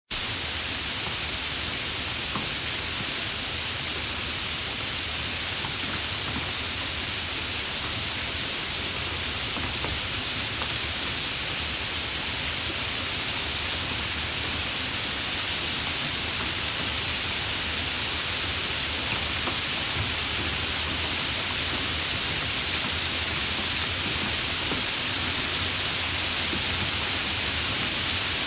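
Steady, moderate rainfall: an even hiss of falling rain with a few faint individual drop ticks.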